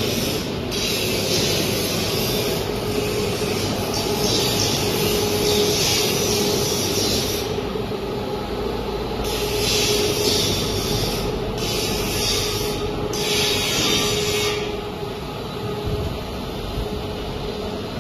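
Diesel generator set running steadily, with a constant hum and a high rushing hiss that drops out and comes back several times.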